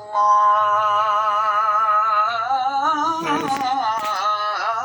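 A voice singing a long, wavering melody with music, played through a TV's built-in speakers. It shows that the set's sound works while the screen stays black, the sign of a failed LED backlight.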